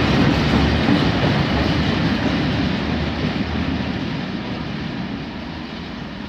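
Freight train of covered grain hopper wagons rolling past on the rails, a steady rumble of wheels and wagons. The noise fades over the last couple of seconds as the final wagon passes and the train draws away.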